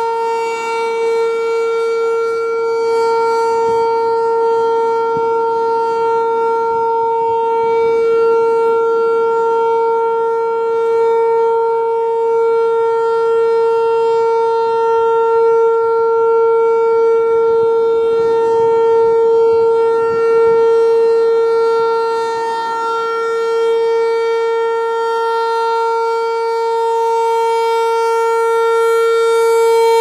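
American Signal T-128 rotating electromechanical warning siren sounding a steady Full Alert tone on one unchanging pitch during a routine test. The level swells and dips gently as the horn turns.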